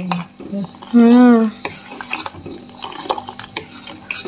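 A steel spoon stirring sugar syrup in a stainless-steel pot, clinking and scraping against the pot in a run of short clicks. About a second in, a short held hum of a voice is the loudest sound.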